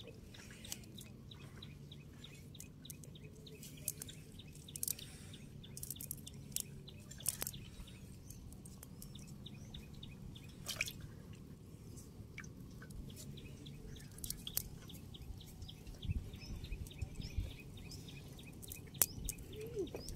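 Hands working small fish out of a nylon cast net: faint rustling with scattered sharp clicks and drips of water.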